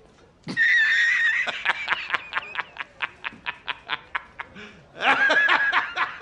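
A man's loud, hearty laughter: a long high "haaa" followed by a rapid run of short ha's, about four or five a second, then another drawn-out burst of laughter near the end.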